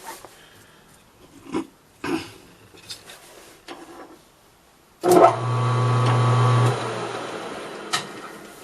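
A few light clicks and knocks of handling, then a metal lathe starts abruptly about five seconds in and runs with a steady hum for about a second and a half. It is then switched off and coasts down, the sound fading over the next two seconds, a brief run to start a shallow drilled hole.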